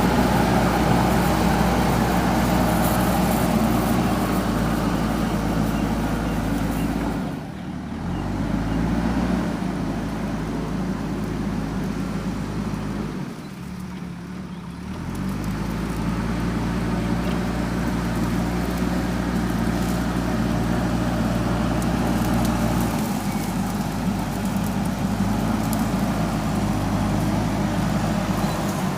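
JCB backhoe loader's diesel engine running at working revs. It drops off briefly about seven seconds in, and again for about two seconds near the middle, each time climbing back up to speed.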